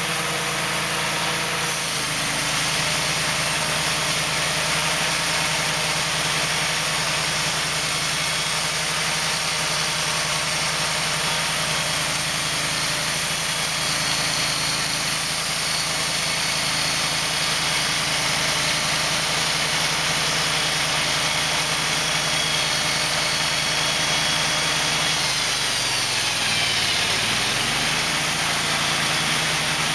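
Wood-Mizer portable band sawmill running steadily on its engine, with a constant hiss over the engine note. About four seconds from the end, the engine's pitch dips briefly and comes back up.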